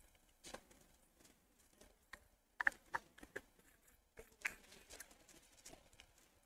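Near silence in a small room, broken by a few faint, irregular clicks and taps.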